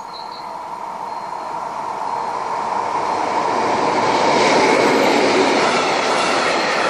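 M62 diesel freight locomotive, with its two-stroke V12 engine, approaching and passing close by. Its sound grows steadily louder to a peak about four and a half seconds in, then the train of loaded tank wagons rolls past on the rails.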